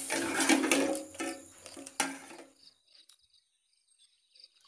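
A ladle stirring and scraping thick porridge in an aluminium pot, with a sharp clack about two seconds in. The stirring stops about half a second later, leaving faint cricket chirps.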